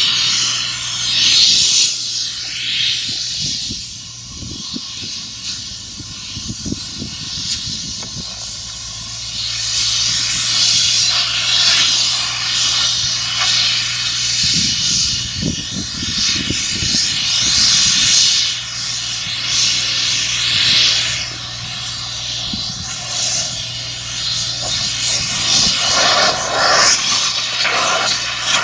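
A high-pressure jet hissing in uneven surges, over a steady low mechanical hum, consistent with machine-care cleaning.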